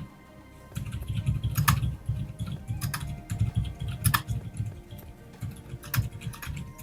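Typing on a gasket-mounted Monsgeek M1 mechanical keyboard with Outemu Cream Yellow silent tactile switches and thick PBT keycaps. A fast run of muted, low keystrokes starts about a second in, the switches' silicone dampers deadening each press, with a few louder, sharper strokes among them.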